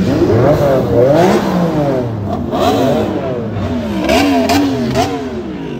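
Supercar engine being revved repeatedly, its pitch climbing and dropping several times in quick blips, with a few sharp cracks about four to five seconds in.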